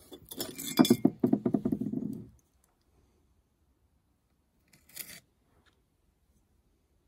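A hand patting and pressing a lump of wet clay on a wooden board: a quick run of soft slaps for about two seconds. A brief light clatter follows about five seconds in.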